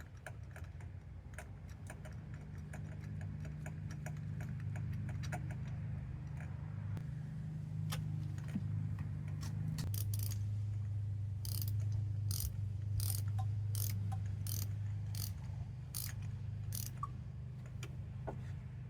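Hand ratchet wrench clicking while turning in a spark plug on an extension and 14 mm deep socket: quick light clicks at first, then louder, evenly spaced clicks about two a second from about halfway, over a low steady hum.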